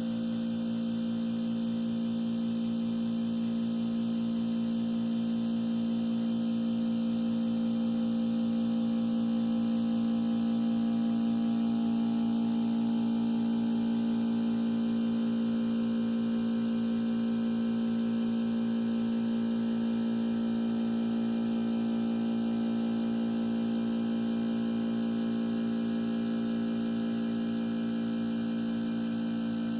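Harvest Right freeze dryer's refrigeration compressor running, a steady electrical hum with a slight swell in loudness midway.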